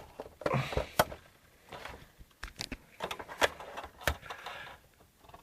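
Irregular clicks, knocks and light scraping of plastic and metal parts being handled inside an opened Xbox 360 console as someone tries to work a part free. The sharpest clicks come about a second in and about four seconds in.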